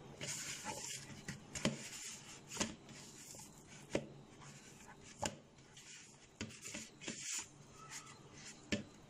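Hands pressing and kneading risen yeast dough in a plastic mixing bowl: soft rubbing with short dull thuds, about one every second or so.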